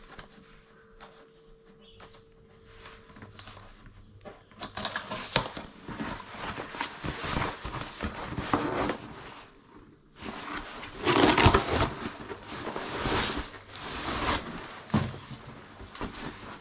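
Cardboard box being opened by hand: packing tape torn off and the flaps pulled open, in irregular rustling, tearing bursts that start about four seconds in and are loudest a little after halfway.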